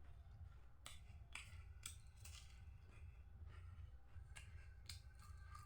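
Faint crunching of a crisp Marie Gold biscuit being bitten and chewed: a series of short, sharp crunches, about four in the first half and a few more near the end.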